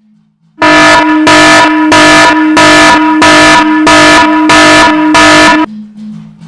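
A harsh electronic buzzer-like sound effect blaring in eight loud, evenly spaced blasts, about one and a half a second, cutting off suddenly near the end; faint low tones follow.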